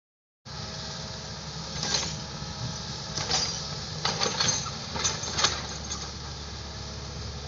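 Excavator's diesel engine running steadily, with several sharp metallic clanks and scrapes over it. The sound begins about half a second in.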